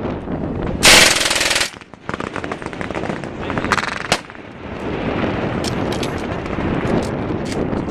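A loud burst of fully automatic machine-gun fire about a second in, lasting under a second, followed by a run of fainter rapid-fire shots that stops about four seconds in, then a few scattered single shots over wind on the microphone.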